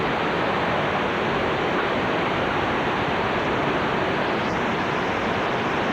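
Hurricane Katrina's wind blowing: a steady, even rushing noise with no let-up.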